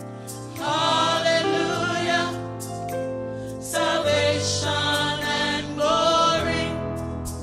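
Gospel vocal group of six singers with handheld microphones singing in harmony in sung phrases with short breaks between them, over sustained instrumental chords.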